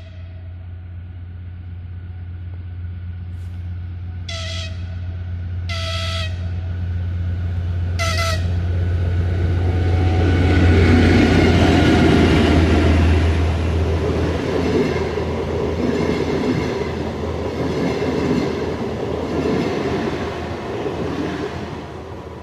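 TEP70BS diesel locomotive approaching with a steady engine drone and sounding three short horn blasts. It then passes by with a loud rumble and the running noise of the towed ES2GP Lastochka train's cars. The noise fades near the end.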